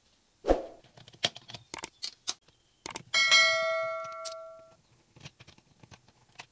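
A bell-like chime rings once about three seconds in and dies away over about a second and a half: the notification-bell sound effect of a YouTube subscribe animation. Around it come scattered clicks and knocks as a wall outlet's plastic cover plate is pried off with a screwdriver.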